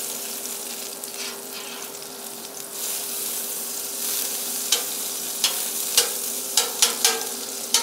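Butter sizzling as it melts on a very hot Pit Boss gas griddle plate, stirred about with metal tongs. The sizzle gets a little louder about three seconds in, and from about five seconds on sharp crackles and clicks come two or three times a second.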